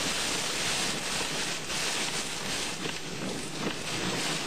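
Heavy rain and strong thunderstorm wind against a car driving through the storm: a steady, dense hiss.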